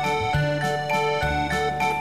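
Background music: a melody of held notes over changing bass notes, with a steady beat.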